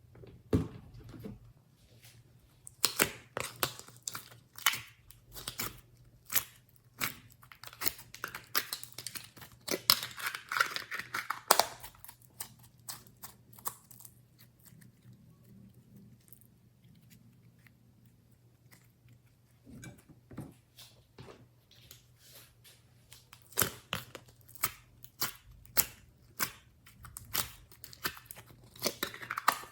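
Hands squishing and kneading glossy slime: irregular sticky clicks and pops, with a quieter stretch about halfway through.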